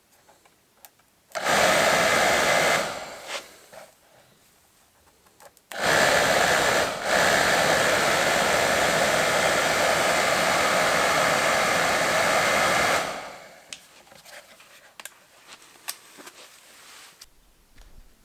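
Two runs of a steady rushing blow of air from a blower: a short one of about a second and a half, then a longer one of about seven seconds. Each fades away over about a second.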